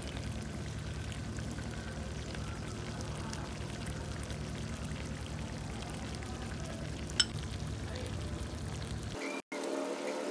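Chicken and tomatoes frying gently in oil in a steel karahi, a steady sizzle over a low rumble. About seven seconds in there is one sharp click of metal tongs against the pan. The sound cuts off abruptly near the end.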